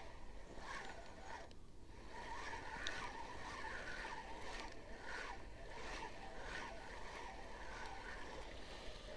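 Spinning reel being cranked to retrieve a lure, its gears whirring in pulses about twice a second with a brief pause about two seconds in.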